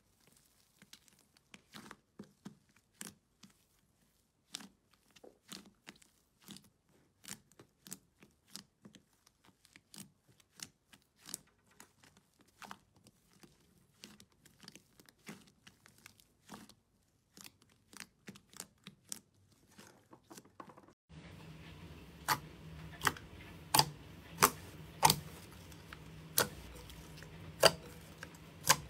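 Hands pressing and kneading thick fluffy slime in a plastic tub, giving off quiet sticky crackles and small pops several times a second. About three-quarters of the way through it changes to glossy slime squeezed and folded in a glass bowl: louder, sharp wet pops about once a second over a steady low hum.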